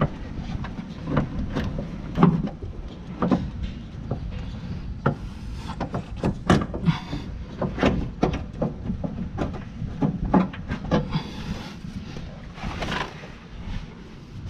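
Irregular clinks and knocks of hand tools and parts against a car's underside as the starter motor is worked into place, over a steady low rumble.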